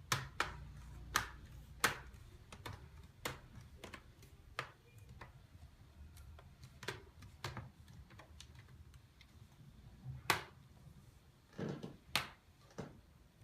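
Plastic laptop screen bezel being pressed back onto the lid, its clips snapping into place: a series of irregular sharp clicks and snaps, with louder ones near the start and again late on.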